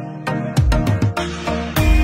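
Background music: a song with a steady drum beat, and a deep bass line comes in about half a second in.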